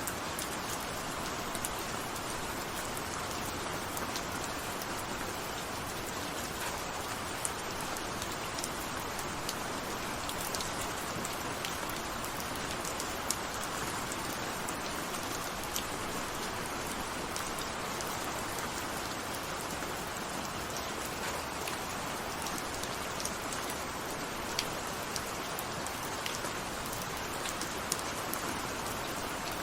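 Steady rain falling, an even hiss with many scattered drops ticking on a surface.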